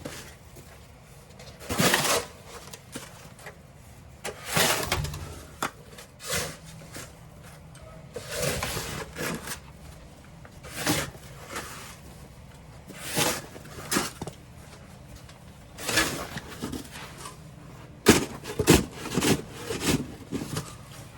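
Melnor snow shovel scraping and pushing snow in repeated strokes, about one every two seconds, each a short noisy scrape.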